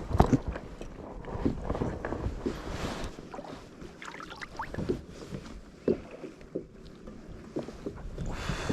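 Water and handling noise on a small fishing boat: a low wash with scattered short knocks and clicks.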